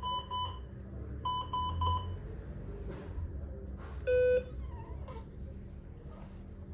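Medical monitor alarm beeping in two groups of three short, high beeps, then a single lower, louder beep about four seconds in, over a low steady hum.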